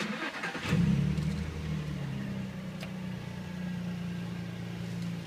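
2003 Nissan 350Z's 3.5-litre V6 running through a GReddy titanium H-pipe true-dual exhaust, heard from inside the cabin. The engine note gets sharply louder about a second in, then settles to a steady low hum.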